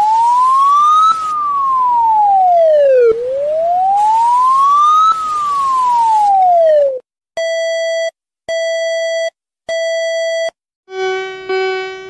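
Emergency alert siren tone, labelled as Poland's, wailing up and down in pitch twice over hiss, then three steady beeps. Near the end a different, rapidly pulsing, buzzy alert tone begins.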